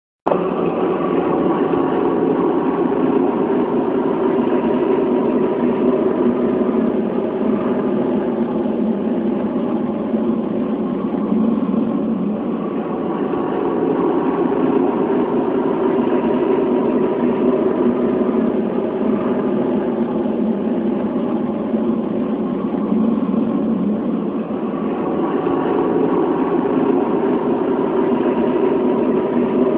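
A loud, steady droning hum with several held tones, the kind of sound reported as 'The Hum'. It starts suddenly and runs on without a break, swelling and easing slightly.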